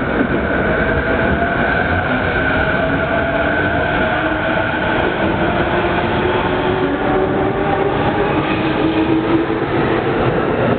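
Electric commuter trains at a busy station platform: a steady rumble with several motor whines, some slowly rising in pitch.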